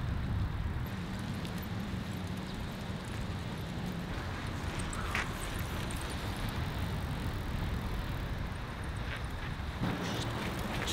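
Steady low rumble of a bicycle rolling along a paved path, tyre and wind noise, with a few faint ticks.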